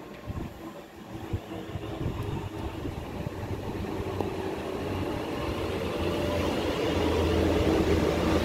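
A train approaching: its running noise and a steady low hum grow steadily louder.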